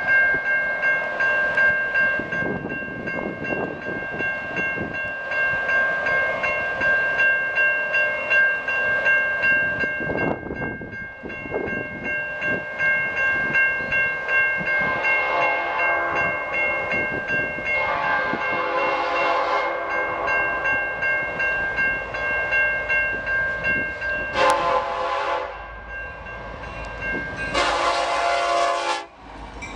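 Electronic railroad crossing bell ringing steadily while a diesel freight locomotive's horn sounds the grade-crossing signal: two long blasts, a short one, then a final long blast, the last the loudest. The bell stops about when the short blast sounds.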